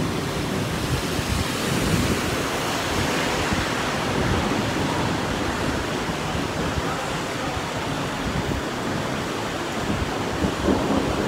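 Heavy rain pouring steadily, with wind buffeting the microphone in low rumbling gusts, strongest near the end.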